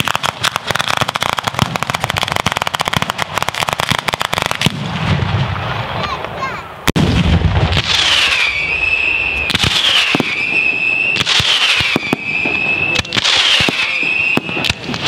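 Firework battery going off at close range: a dense rapid crackle of firecracker reports for the first few seconds, a heavy deep boom about seven seconds in, then a run of shots, each with a whistle that drops in pitch and holds, repeating about every one and a half to two seconds.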